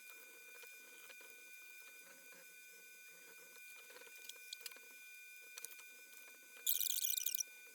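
Handling sounds at a workbench: a few light clicks, then a short, loud, high-pitched scratchy rustle about seven seconds in, over a faint steady electrical whine.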